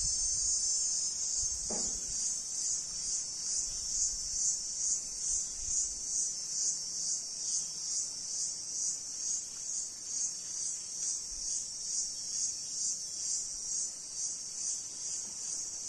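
Insects shrilling outdoors: a continuous high-pitched chorus that pulses about twice a second.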